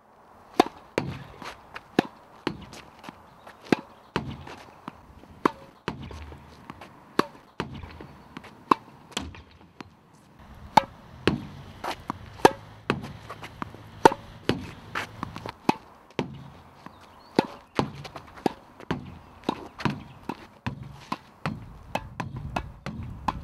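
Tennis ball rallied against a PROflex tennis backboard: a steady run of sharp hits, about one or two a second, as the racket strikes the ball, the ball smacks off the wall and bounces on the court.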